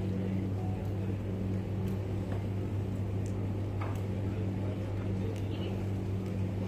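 Steady low hum filling a large hall, with a few faint scattered clicks.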